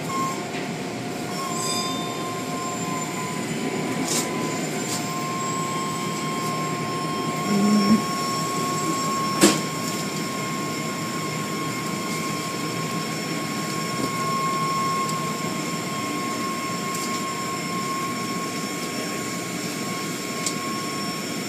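Automatic car wash machinery running: a steady mechanical whine over continuous rushing noise, with a few sharp clicks and a short thump partway through.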